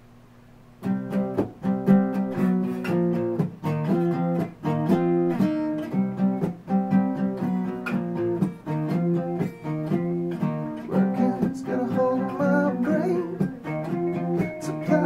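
Acoustic guitar strumming chords in a steady rhythm, starting about a second in.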